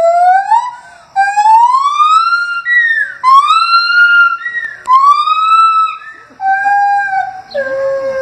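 Gibbons calling: a run of long, clear whooping notes, each sliding up in pitch over about a second, five or so in a row. Near the end the notes turn lower and steadier.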